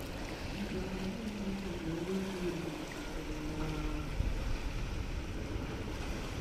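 Steady harbour ambience: water washing against breakwater rocks, with a faint wavering distant hum from about half a second to four seconds in.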